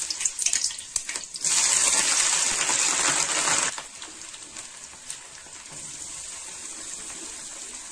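Wet, freshly washed pirandai (adamant creeper) stems frying in hot sesame oil in a kadai. It crackles and spits at first, then a loud, dense sizzle lasts about two seconds and drops to a steadier, quieter frying hiss about four seconds in. The spitting comes from the water left on the washed stems.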